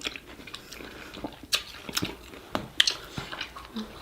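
Close-miked eating sounds from a seafood boil: chewing with several sharp, wet mouth clicks and smacks, the loudest a little before three seconds in.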